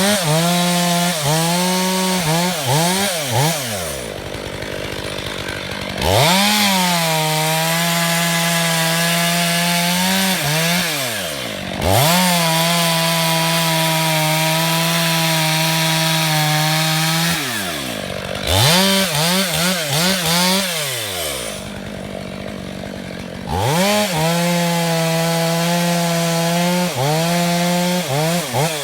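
Stihl MS 661 two-stroke chainsaw cutting wood in about five long passes. It holds high, steady revs through each cut and drops briefly to idle between them, with the revs wavering up and down at the start and in one shorter pass.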